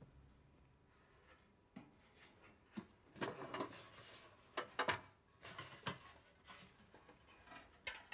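Lid of a decorated metal box opened and the things inside handled: a scatter of light clicks, knocks and rustles, busiest in the middle.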